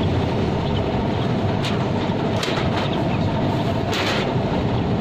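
Sheet-metal panel of an air-conditioner condenser unit being handled into place, giving a few short metallic knocks and scrapes, the strongest about four seconds in. A steady low rumble underlies them.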